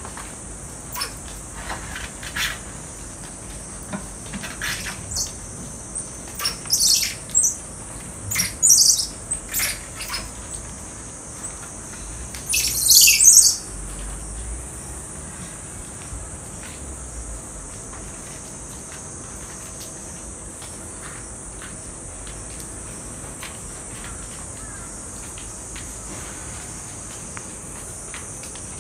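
Common squirrel monkeys giving sharp, high-pitched chirping calls, scattered singly and in short runs through the first half, the loudest run about halfway through. These are excited calls at the sight of their keeper, which the uploader takes for feeding time. A steady high hiss runs underneath.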